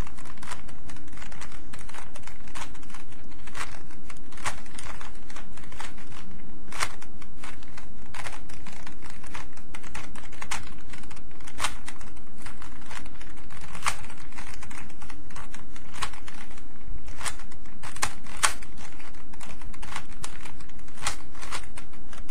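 A Rubik's Cube being turned one-handed: irregular plastic clicks and clacks as its layers snap round, one to a few a second, some sharper than others.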